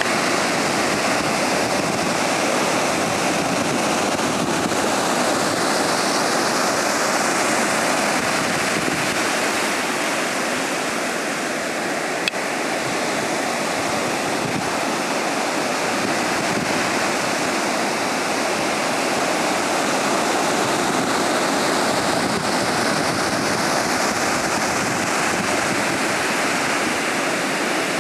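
Ocean surf breaking and washing up the beach, a steady rush that swells and eases. A single brief click about twelve seconds in.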